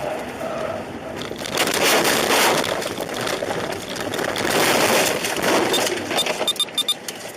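A vehicle's loud rushing, crunching noise that swells twice, with a quick run of sharp clicks near the end.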